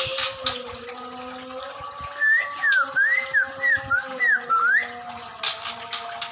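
Murai songbird singing a quick run of about eight clear whistled notes that rise and fall, over steady high background tones, followed by a short burst of noise near the end.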